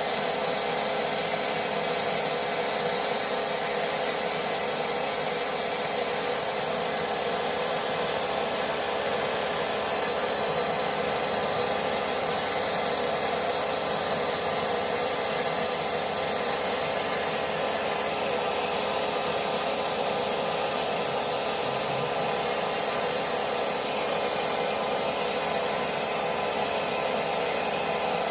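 Vapor blasting gun spraying a jet of water and abrasive onto motorcycle engine parts, a steady unbroken hiss with a faint machine hum underneath.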